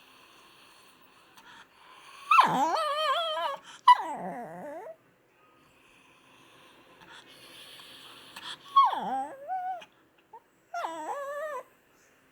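A dog whining and yowling to be fed, in four long calls that each swoop down in pitch and then warble, coming in two pairs.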